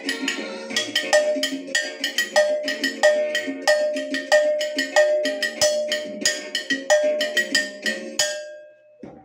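Hand-held metal cowbell struck with a wooden stick in a fast rhythm, with accented strokes about every two-thirds of a second, each leaving a short ringing tone. The playing stops a little after eight seconds in and the last stroke rings out.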